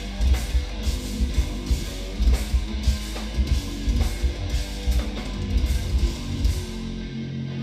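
Instrumental progressive metal band playing live, with eight-string electric guitars over a drum kit. Near the end the drums stop and a final guitar chord rings out.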